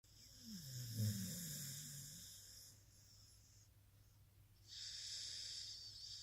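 Blue-nose pit bull snoring in its sleep: a long snoring breath with a low, wavering rumble in the first two seconds, then a second, airy breath near the end.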